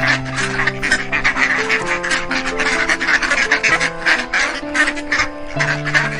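Duck quacking, many short quacks in quick succession, over background music with a steady melody.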